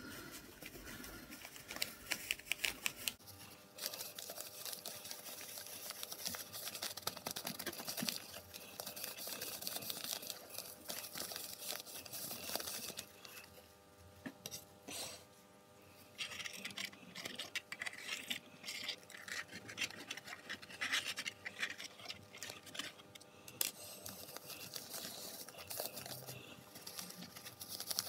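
Fine, lightweight sand pouring from a bag into a plastic ant farm: an uneven hissing trickle with scratchy rustles, easing off briefly about halfway through.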